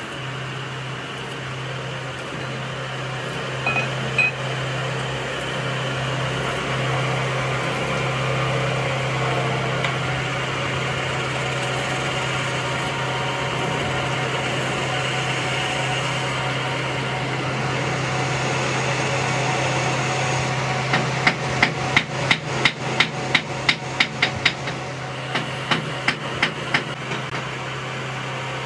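A steady mechanical hum runs throughout. Near the end, a hammer strikes metal in a quick run of about four blows a second for around four seconds, then a few more.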